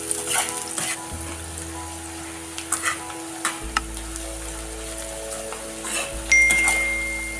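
Sliced onions deep-frying in hot oil in a metal kadhai, sizzling steadily, while a steel spatula scrapes and clicks against the pan as they are stirred to crisp them. About six seconds in, a bright ringing chime starts and is the loudest sound.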